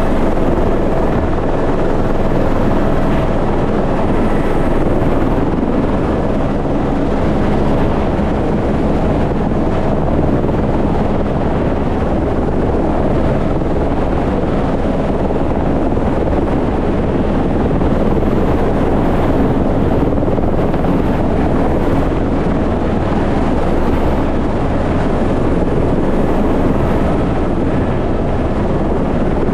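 Helicopter engine and rotor running loud and steady while it hovers low, heard from inside the cabin with the door open.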